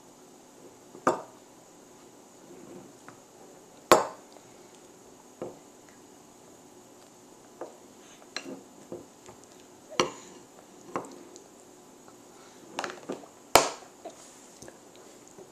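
About a dozen scattered, irregular clinks and taps of a metal spoon against dishes and a high-chair tray while a toddler is spoon-fed; the loudest come about four seconds in and near the end.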